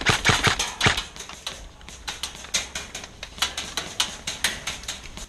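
Airsoft guns firing in an exchange of shots: a rapid, uneven string of sharp cracks, about five a second, loudest in the first second.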